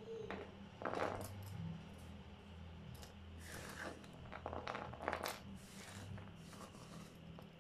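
Small cut rubber eraser pieces being scooped up by hand off a wooden board: scattered soft rustles and light clicks as the pieces shift in the hand and the hand brushes across the board, loudest about a second in and again around five seconds.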